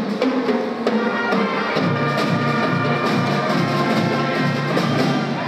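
High school pep band playing: trombones, trumpets, saxophones, clarinets, flutes and sousaphone over a steady beat.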